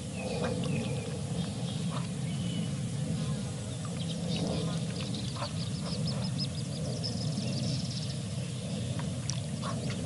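Wild birds calling and chirping, with a fast run of short notes about midway and a high trill near the end, over a steady low background rumble.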